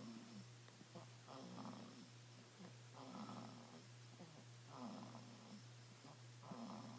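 Soft snoring in a slow, even rhythm: four rattly snores, one about every second and a half to two seconds. A steady low hum runs beneath.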